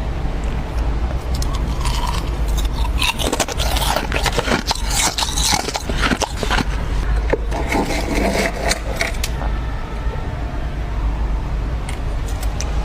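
Ice being scraped and crunched: a dense run of sharp cracks and crackles, thickest in the middle and thinning out after about nine seconds, over a steady low hum.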